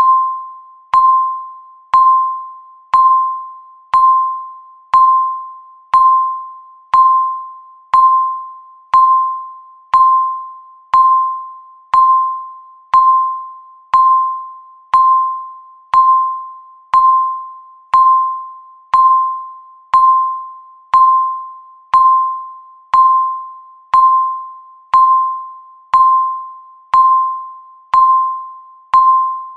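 Countdown timer's electronic tick sound: a bright, bell-like ding once a second, each ringing out and fading before the next.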